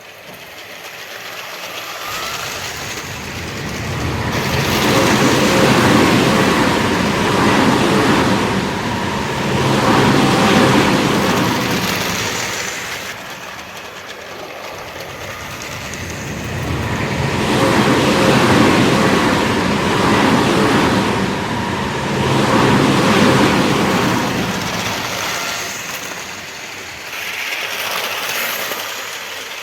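Dubbed-in sound effect of a full-size train running on rails, a rumbling rush with some clickety-clack that swells up and fades away twice, as if trains were passing.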